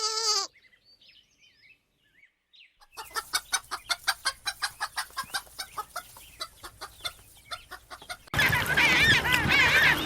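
Chickens: a hen gives a quick, even run of short clucks, then, after an abrupt cut, a crowd of chicks peeps loudly all at once. A brief bleat is heard right at the start.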